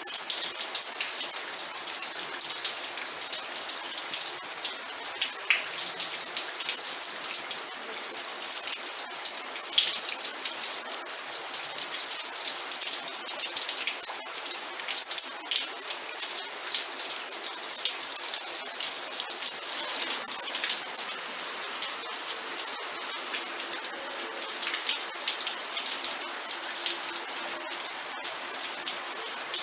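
Steady rain with many individual drops pattering, an even hiss and dense small ticks.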